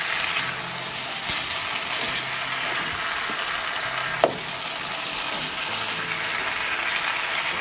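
Gilbaka fish curry pieces and chopped tomato sizzling in hot oil in a non-stick frying pan while being stirred with a silicone spatula. There is a steady hiss, with one sharp tap about four seconds in.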